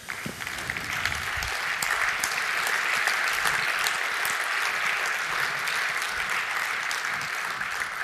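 A large audience applauding steadily at the close of a talk, many hands clapping at once, starting suddenly.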